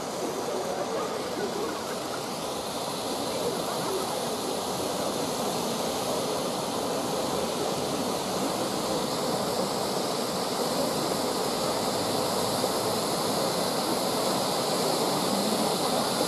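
Three firework ground fountains hissing steadily as they spray sparks, the rush slowly growing louder.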